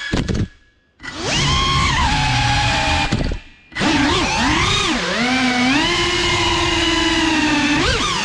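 5-inch FPV quadcopter's brushless motors and propellers whining. Right at the start there is a short clatter of a crash and the motors cut out, then spool back up about a second in. They cut out again briefly near the middle, then rise back to a steady whine with swings in pitch as the throttle changes.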